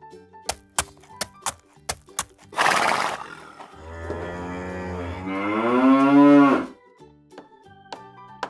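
A cow mooing: one long call that rises in pitch, coming in after a short breathy burst. Before it, half a dozen sharp clicks of plastic toy figures and fence pieces being set down. Soft background music plays underneath.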